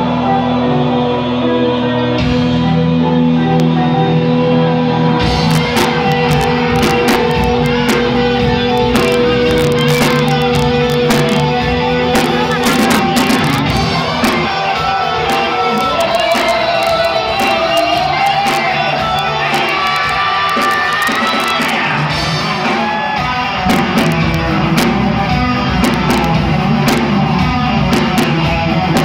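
Live heavy metal band playing through a PA in a large hall: electric guitars hold long notes, drums come in about five seconds in, and a voice sings over the band.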